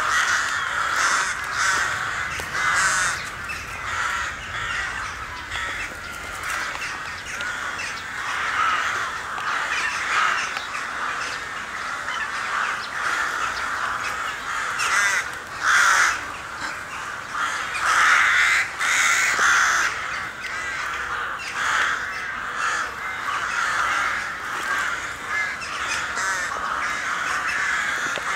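A large flock of crows cawing, many calls overlapping into a continuous din, with louder bursts of calling about halfway through and again a little after.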